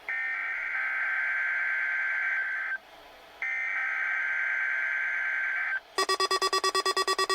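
NOAA Weather Radio SAME header for a Required Weekly Test: two long bursts of two-pitch digital data tones with a short gap between them. About six seconds in, a weather radio's alert alarm starts, beeping rapidly at about ten pulses a second.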